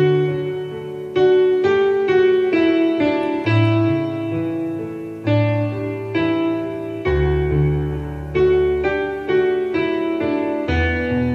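Slow, gentle piano music. Notes and chords are struck about once or twice a second, and each one rings and fades.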